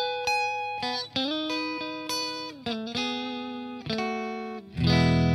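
Electric guitar played through a Positive Grid Spark modelling amp with the Bass Comp compressor model engaged. Single notes ring out for about a second each, with slides between some of them, and louder low chords come in near the end.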